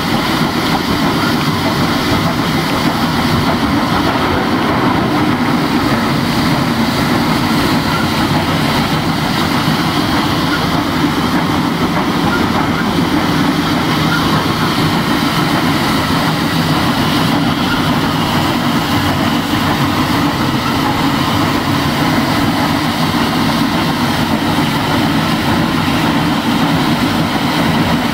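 Inside the cab of steam locomotive #734, a 2-8-0 Consolidation, working up a grade. The engine and its running gear make a loud, steady din that does not let up.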